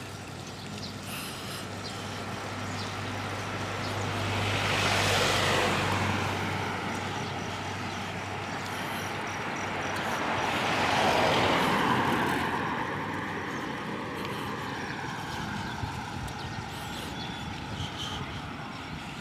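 Road traffic: two motor vehicles pass close by, one about five seconds in and another about eleven seconds in, each swelling and fading over a steady background of road and wind noise.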